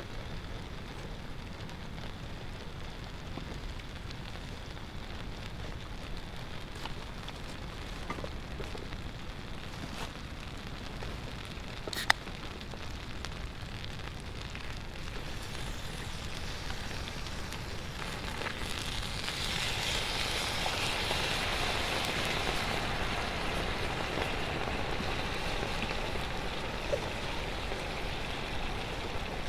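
Surf washing on a reef beach as a steady hiss, with a wave swelling louder about two-thirds of the way through, and a single sharp crack about twelve seconds in.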